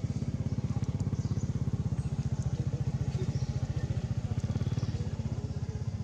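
An engine running steadily with a rapid, even low throb.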